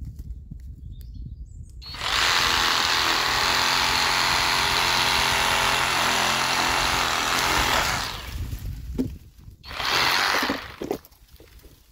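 SKIL SW1E3475CA 20V brushless cordless reciprocating saw running and cutting through a tree branch, a loud, steady sawing buzz for about six seconds starting two seconds in. It stops, then runs again in one short burst of about a second near the end.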